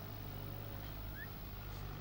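Tractor engine running steadily, a low even hum, with one short high chirp about a second in.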